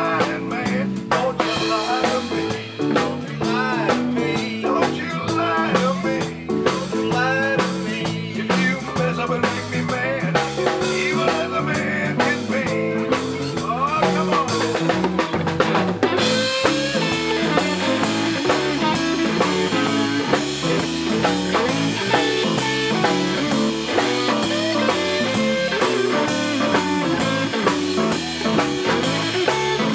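Live blues-rock band playing: electric guitars, electric bass and a drum kit, with bending lead notes in the first half. About sixteen seconds in, the sound grows brighter and busier.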